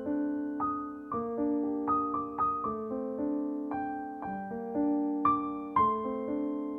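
Background piano music: a slow melody of struck notes, about two a second, each ringing on over held lower notes.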